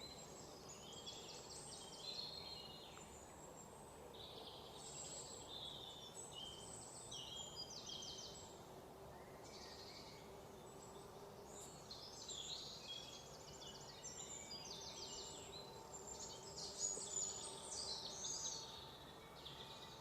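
A chorus of birds in a forest, many chirping and trilling at once, the calls overlapping continuously over a faint steady hiss, with a louder flurry of calls near the end.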